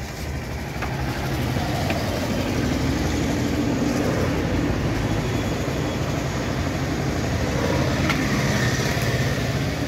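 Steady motor-vehicle noise from a running car engine and road traffic, with no distinct single event.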